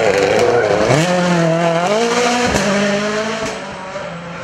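Ford Fiesta RS WRC rally car's 1.6-litre turbocharged four-cylinder engine working hard through a hairpin: the revs drop, then climb about a second in as the car accelerates out, with a quick upshift about two and a half seconds in, and the engine fades as the car drives away near the end.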